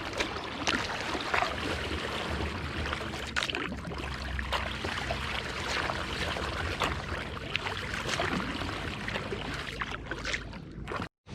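Kayak paddles working the water: irregular splashes and drips from the blades over a steady low rumble.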